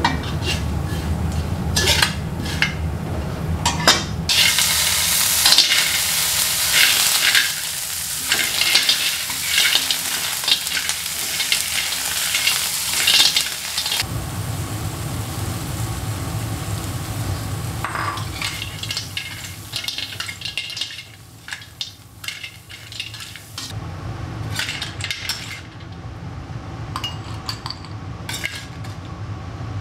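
Sambal chilli paste and shell-on cockles frying and sizzling in hot oil in a stainless steel wok, with a metal spatula repeatedly scraping and clicking against the wok as they are stirred. The sizzle is loudest in the first half and changes abruptly a few times.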